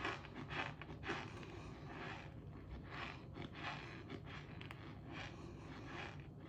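Someone chewing crunchy cornstarch chunks: a steady run of crisp crunches, about two a second.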